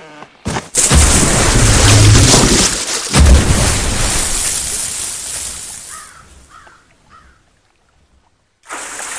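A sudden loud rush of water with a deep rumble as a car is yanked into a lake and hits the water in a huge splash. The splash fades out over several seconds, with a few short high chirps near its tail, and a fresh rush of water noise starts near the end.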